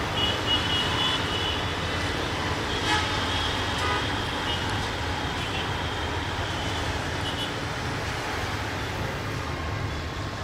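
Steady rumble of vehicles, easing slightly near the end, with faint high-pitched tones in the first few seconds and a single click about three seconds in.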